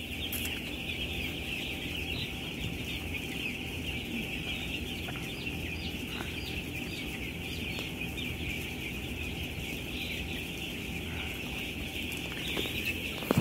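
A large flock of broiler chicks cheeping all at once, a dense, steady, high-pitched chorus of overlapping peeps, over a low steady hum.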